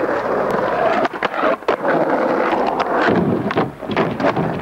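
Skateboard wheels rolling over rough asphalt, with several sharp clacks and knocks of the board, through an old camcorder microphone with wind noise.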